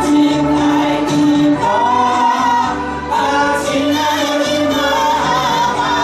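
A mixed group of men and women singing an Indonesian folk-song medley together into microphones, with several long held notes.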